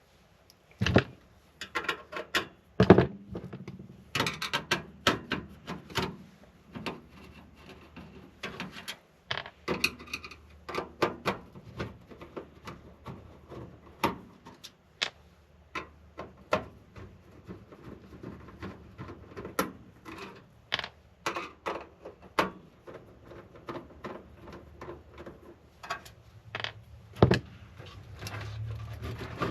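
Irregular clicks, knocks and light clatter of computer hardware being handled and taken apart in a PC case, dozens of small impacts with no steady rhythm.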